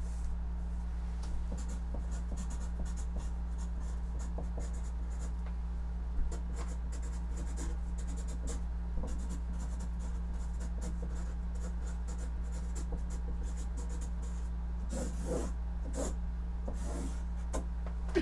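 A pen writing on a large sheet of paper on a wall: many short scratchy strokes, with a few longer ones near the end, over a steady low electrical hum.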